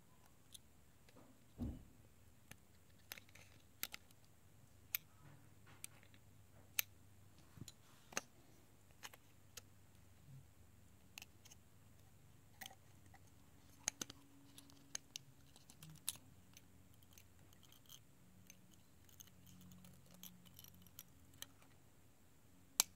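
Faint, scattered small clicks and ticks, with one soft low thump about two seconds in, from an iPhone 6 and its parts being handled as the logic board is worked out of the housing.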